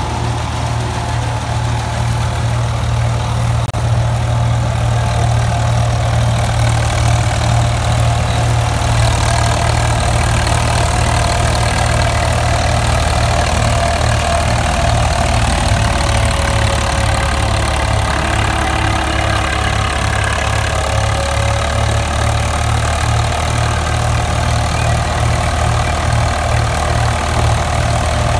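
Swaraj 855 tractor's three-cylinder diesel engine running steadily under load, driving a tractor-drawn straw reaper through the PTO. The reaper adds a steady mechanical whine over the engine's deep running sound.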